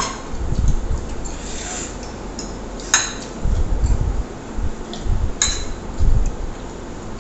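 Eating at a table: forks and spoons clinking and scraping on plates, with two sharp clinks about three and five and a half seconds in, over low irregular knocks.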